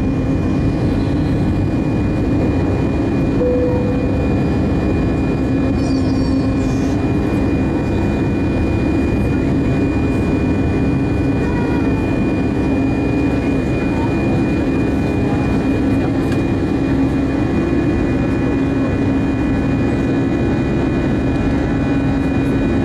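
Airbus A319 jet engines at climb thrust, heard from inside the cabin during the initial climb after takeoff: a steady loud roar with a low drone and a thin high whine above it.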